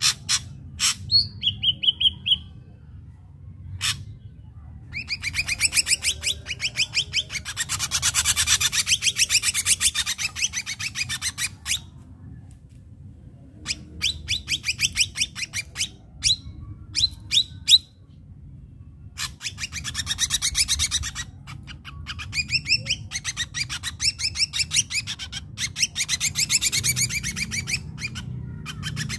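Ashy drongo singing: fast runs of harsh repeated notes lasting a few seconds each, broken by short pauses, with a brief clear whistle about two seconds in.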